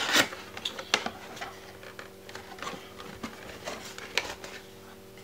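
Cardboard lens box being opened by hand: a sharp scrape of the box flap at the start, then scattered light taps and rustles of cardboard and paper inserts.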